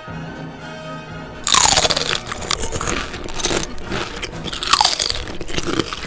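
Loud, dense crunching that starts about a second and a half in and keeps going in repeated surges, over background music.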